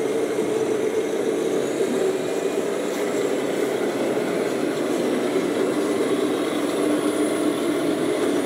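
Simulated diesel truck engines from the sound modules of radio-controlled model trucks, a steady idling hum.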